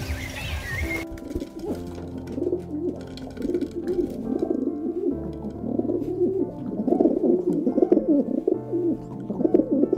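Feral pigeons cooing, a steady run of wavering coos that starts about a second in and grows louder toward the end, over background music.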